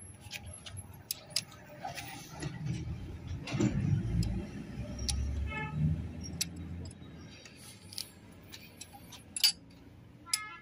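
Steel spanners clicking and clinking against the bolts and cast housing of a mini tractor's differential as it is unbolted, with one clink ringing briefly about six seconds in. A low rumble runs through the middle.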